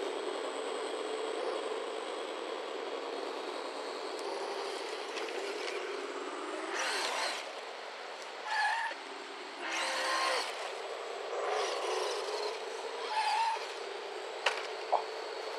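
Electronic engine sound kit in an Axial SCX10 RC crawler, playing a simulated engine running steadily through a single small speaker as the truck drives. In the second half there are several short, louder bursts of noise, and near the end two sharp clicks.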